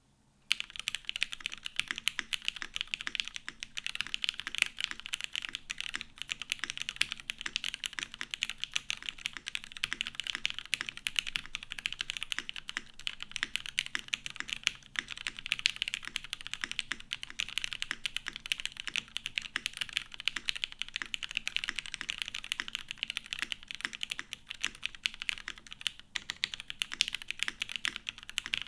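Fast, continuous typing on a custom mechanical keyboard with lubed linear Cherry MX Black switches on a top-mounted aluminium plate, the keys clacking in quick succession. The typing starts about half a second in.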